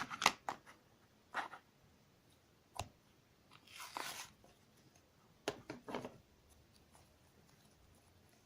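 A plastic slime container being opened and the slime inside handled: a few scattered faint clicks and crackles with a short rustle in the middle. The slime has started to dry out and stretches poorly.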